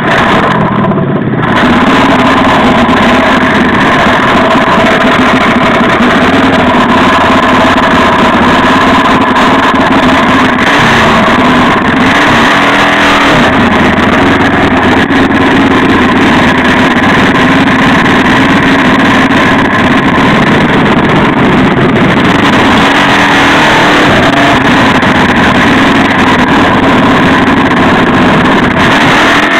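Mini bike's small engine running loud and close, picked up by a camera on the bike; it pulls away about a second and a half in and then holds a steady cruising speed.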